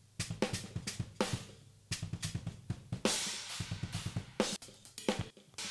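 Raw drum overhead microphone tracks played back soloed: a busy, intricate kit pattern of kick and snare hits with cymbal washes about a second in and about three seconds in. The overheads are panned from the audience's perspective, with the hi-hat on the right and the floor tom on the left.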